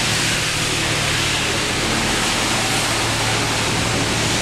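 Steam-hauled heritage passenger carriages rolling past close by: a steady rush of steel wheels running on the rails, with a faint low hum underneath.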